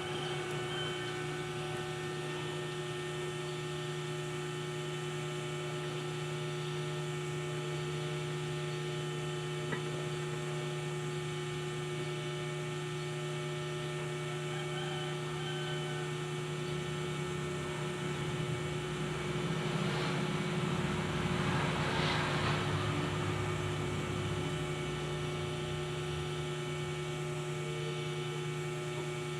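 Steady electrical hum, with a louder rushing swell for a few seconds past the middle.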